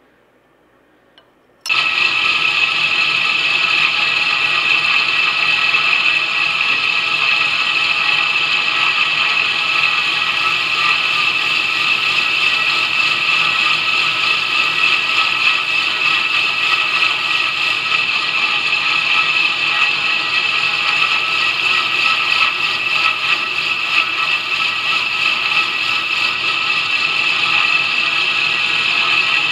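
2x72 belt grinder running a fine Scotch-Brite surface conditioning belt, with a knife blade's flat held against it: a steady, loud whir with a high, even ringing tone. It starts abruptly a little under two seconds in, after near silence.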